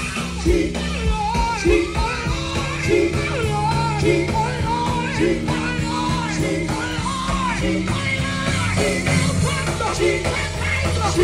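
Live gospel music played loud through an outdoor PA: singers on microphones carry a bending melody over a band with steady bass and a regular beat.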